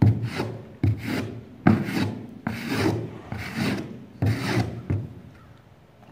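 A horse rubbing its muzzle against a plywood board on plastic pallets to scratch an itch: about seven rasping strokes, a little under a second apart, that stop about five seconds in.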